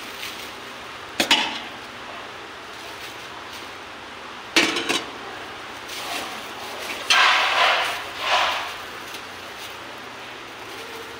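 A thin plastic bag rustling and crinkling as it is handled and filled with cooked rice, with sharp clinks and knocks of a metal utensil about a second in and again around four and a half seconds in.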